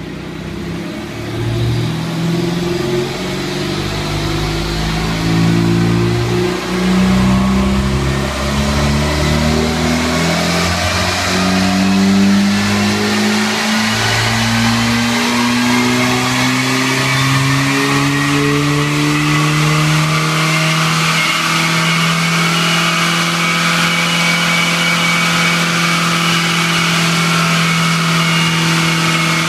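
Ford Puma's 1.7 VCT four-cylinder engine driving the car on a chassis dyno's rollers: it revs up in repeated climbs, the pitch dropping back at each gear change, then rises slowly and holds a steady high pitch from about two-thirds of the way in. A fainter rising whine runs above it.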